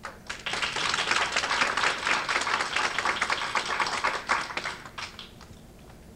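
Audience applauding: a dense patter of many hands clapping that starts about half a second in and dies away about five seconds in, with a few last claps after.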